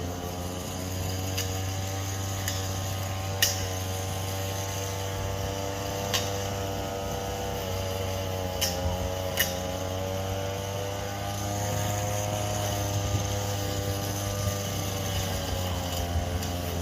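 Small two-stroke brush cutter engine running steadily, its speed drifting gently up and down, with a few sharp ticks.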